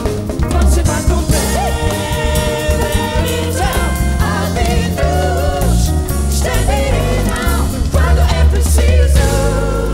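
Live band playing, with a lead singer and backing vocals over drum kit, cymbals and a heavy bass line.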